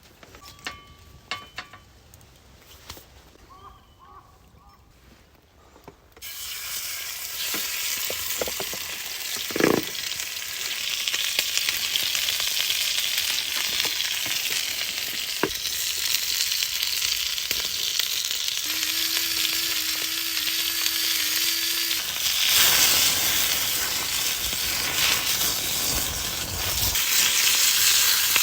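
Quiet at first with a few light clicks, then about six seconds in a loud sizzle starts suddenly as steak goes into a hot pan, and it keeps frying steadily, with one knock soon after.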